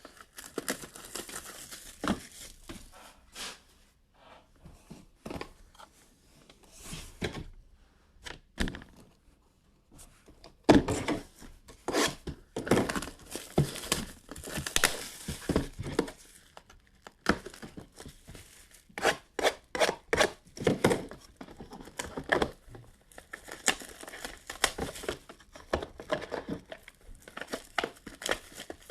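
Plastic shrink wrap being torn and crinkled off sealed trading card boxes, in irregular bursts of ripping and rustling with short pauses and occasional sharp knocks from the boxes being handled.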